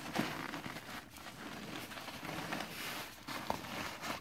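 Fabric rustling and scuffing as a felt purse organizer insert is worked down into a fabric tote bag by hand, with a few soft bumps.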